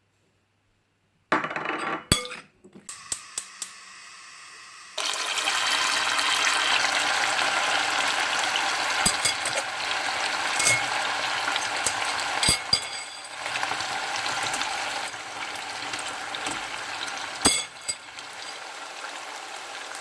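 Pork ribs deep-frying in hot oil, a loud steady sizzle with scattered sharp clinks of a metal utensil against the pan. Clinking and rustling start about a second in; the full sizzle sets in at about five seconds.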